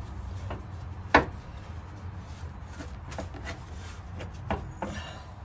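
Air ride bag and its metal mounting hardware being handled and fitted into a car's front suspension: one sharp click about a second in, then a scatter of lighter clicks and knocks. A steady low hum sits underneath.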